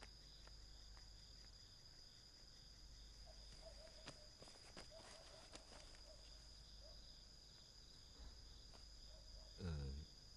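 Near silence with faint, steady cricket chirping in the background, broken by a few soft clicks. A short murmur of a voice comes near the end.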